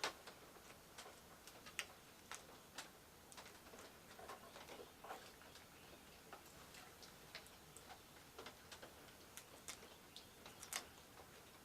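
Faint, irregular small clicks and light scrapes of a blade cutting through insulation as scrap wire is stripped by hand.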